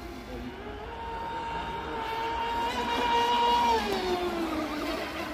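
Motor of an RC racing boat running at speed on the water, with a steady pitch that grows louder and then drops about four seconds in as the boat goes by.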